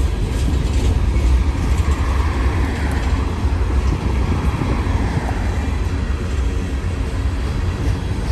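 Steady low rumble of a moving vehicle, even throughout, with no horn sounding.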